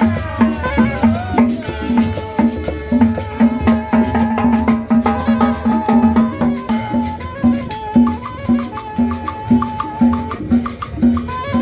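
Upbeat Latin dance music with a steady, evenly repeating beat and percussion.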